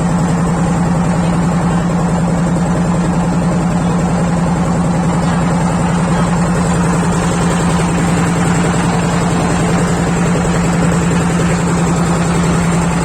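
A river launch's engine running steadily, a loud constant low drone with an even hum that does not change.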